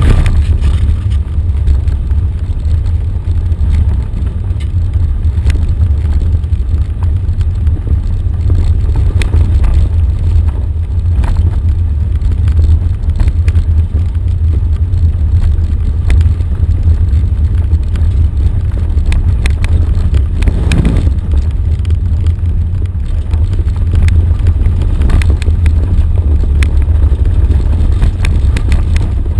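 Off-road vehicle driving down a gravel road: a steady, loud low rumble of the vehicle and wind on the microphone, with scattered clicks and rattles from the rough surface.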